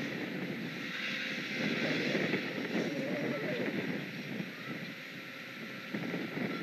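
Wind blowing over an outdoor microphone in uneven gusts, strongest around two to three seconds in.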